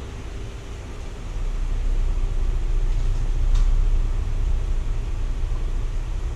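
A car's low engine rumble growing louder as it approaches, then easing off, with a single sharp click about three and a half seconds in.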